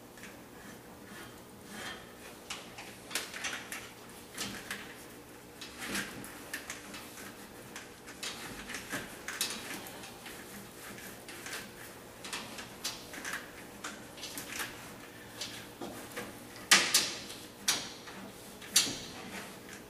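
Quarter-inch plastic sampling tube being fed down an engine's dipstick tube, with the oil-sampling vacuum pump in hand: irregular light scraping and clicking handling noises, with a couple of sharper knocks near the end.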